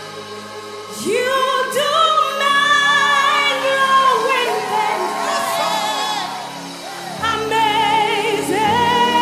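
Live gospel music: a woman's lead voice singing with vibrato over sustained band accompaniment, with a choir behind her. The music gets louder about a second in.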